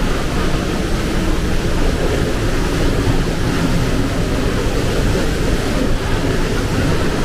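Waterfall's falling water: a loud, steady rushing noise, heaviest in the low end, with no changes.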